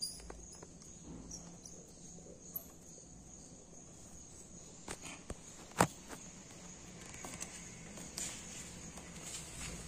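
Small clicks and taps of hands handling the throttle body and its wiring connectors on a motorcycle engine, with one sharp click about six seconds in. A steady, faint, high-pitched insect-like whine runs underneath.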